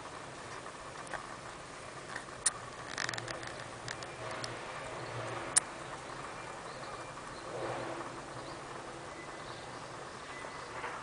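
An old Shetland sheepdog's paws pattering on dirt and brick paving, with a few light scuffs and two sharp ticks, about two and a half and five and a half seconds in.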